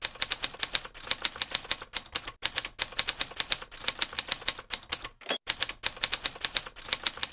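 Typewriter sound effect: a fast, uneven clatter of key strikes matching text being typed out on screen, with a short high ring about five seconds in.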